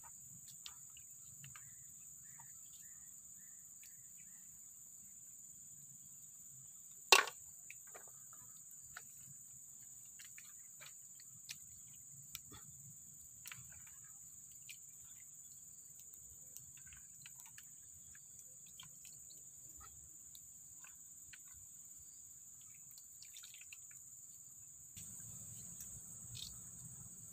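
Steady high-pitched drone of crickets, with faint soft handling sounds of hands kneading a wet mixture in a plastic bowl. One sharp knock stands out about seven seconds in.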